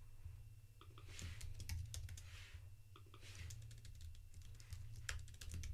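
Computer keyboard being typed on in irregular runs of keystrokes, over a steady low hum.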